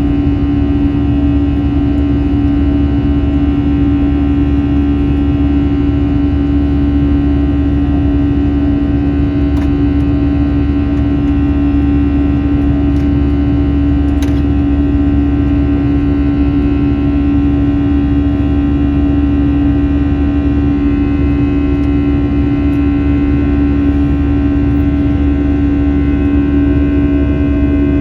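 Steady drone of an Airbus A321's jet engines heard from inside the passenger cabin: a constant low rumble under a strong, even hum, with a few faint clicks partway through.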